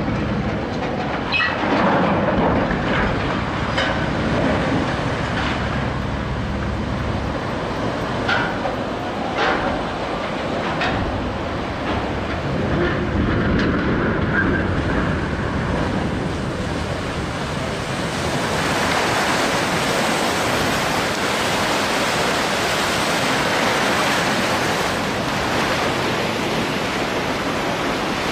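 Wind buffeting the microphone over water churned by a ship's side launch, with a low rumble and scattered knocks in the first several seconds, turning to a steadier, brighter hiss about two-thirds of the way through.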